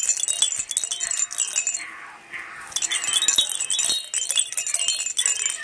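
Cowbells jangling in quick, irregular clinks with high ringing tones. The jangling eases off for a moment about two seconds in, then picks up again.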